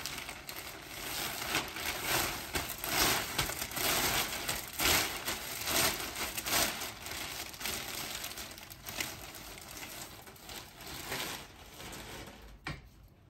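Packaging wrapped around a dress being crinkled and pulled off by hand: an uneven run of rustling and crackling that dies down near the end, with one short click.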